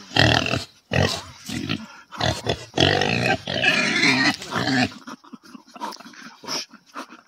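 Loud pig-like snorting and grunting from a person gobbling hot baked potatoes, huffing at the heat. The noises come in irregular bursts and die down after about five seconds.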